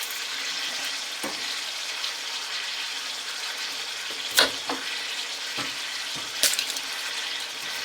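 Chicken breasts sizzling steadily in a cast iron pan, with a few sharp knocks, the loudest about halfway through.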